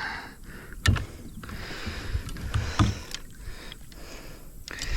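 Handling noises in a fishing kayak as a freshly netted bass is dealt with: a few sharp knocks and clicks against the boat over a faint hiss.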